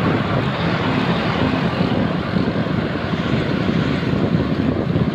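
Wind buffeting the microphone of a camera riding on a moving bicycle: a loud, steady, rough rumble.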